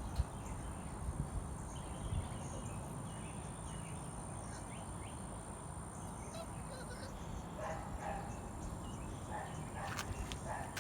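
Pit bull puppies faintly yipping and whimpering, mostly in the second half, over a steady background hiss, with a few light knocks near the end.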